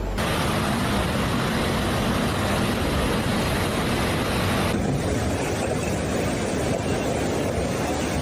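Loud, steady rushing noise of floodwater, with abrupt changes in tone about a quarter second in and near five seconds as one stretch of footage gives way to another.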